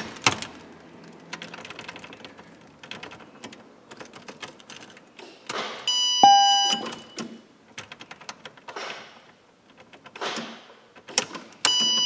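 Small clicks and rattles of an ignition key being turned and a test probe working at the ignition switch connector. A harsh electronic buzz from the circuit tester sounds briefly about halfway through and starts again near the end, signalling voltage on the wire being probed.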